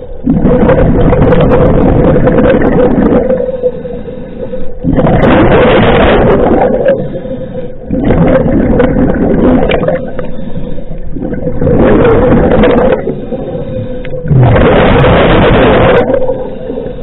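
Scuba diver breathing through a regulator underwater, heard close to the camera. About five breath cycles: loud rushing bubble noise lasting one to three seconds each time, separated by shorter, quieter spells, with a steady hum underneath.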